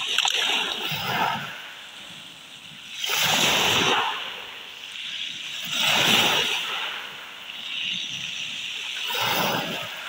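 Small sea waves breaking and washing over a pebble beach, four surges about three seconds apart.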